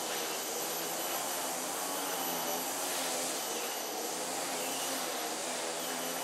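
Steady droning hum of a distant engine with an even stack of pitches, over a general hiss of background noise; the hum drops away near the end.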